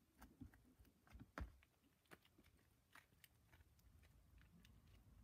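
Faint, scattered clicks and small pops of slime being squeezed and worked between the fingers.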